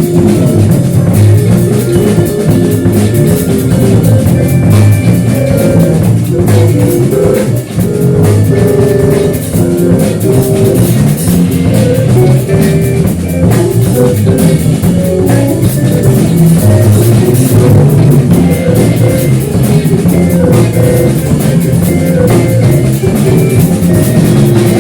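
Live rock band playing: guitar over a drum kit, loud and continuous.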